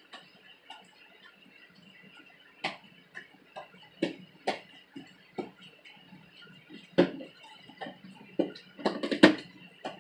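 Irregular clicks and knocks, a stick knocking and scraping against the container while slime is mixed. The loudest come about seven and nine seconds in.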